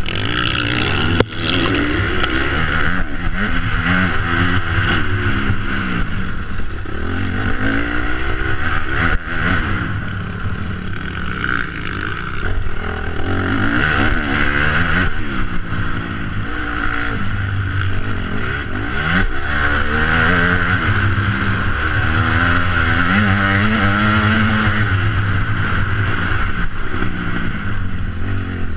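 Motocross bike engine heard onboard, revving up and dropping off again and again as it accelerates, shifts and rolls off for corners, over a steady low rumble. A couple of short sharp knocks come about a second in and about nine seconds in.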